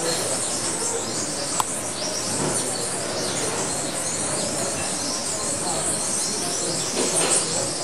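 Many birds chirping and calling in quick, short high notes over a steady hiss. One sharp click about one and a half seconds in.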